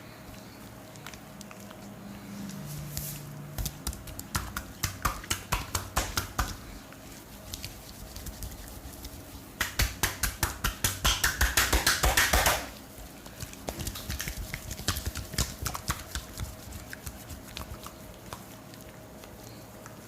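Hands tapping and slapping quickly on oiled skin in a percussive massage: several runs of rapid strikes, the loudest and fastest, about three seconds long, near the middle.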